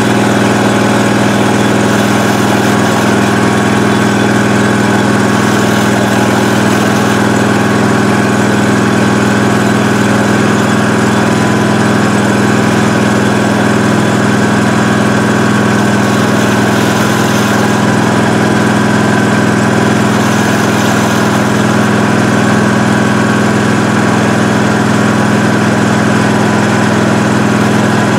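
Scag zero-turn mower engine running steadily at an even speed, just after a cold start.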